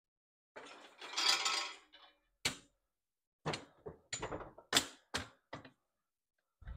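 Metal handling noises from a shop engine hoist and its hanging chain being moved into position: a scraping rustle about half a second in, then a run of sharp, irregular clinks and knocks.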